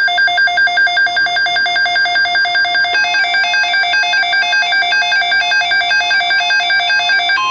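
Electronic emergency-alert beeping: two pitches, one low and one high, alternate quickly at about four to five beeps a second. About three seconds in the pattern shifts as further tones join.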